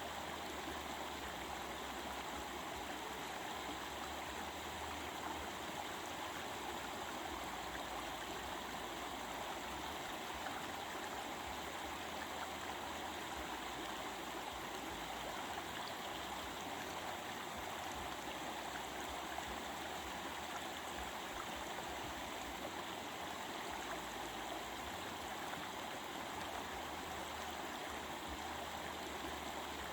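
Stream water running over rocks, a steady, even rush that does not change.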